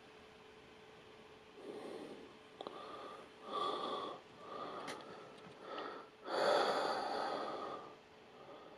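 The camera's cardboard box being handled and turned over: a run of about six short rubbing, scraping sounds, the longest one near the end.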